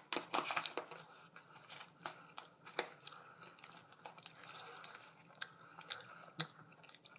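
Person chewing fries with mouth noises, irregular soft crunches and wet clicks.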